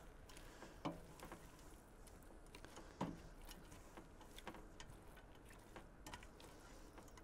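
Faint stirring in a stainless steel pot: a spatula scraping through onions and melting butter, with a few light taps against the pot, the clearest about three seconds in.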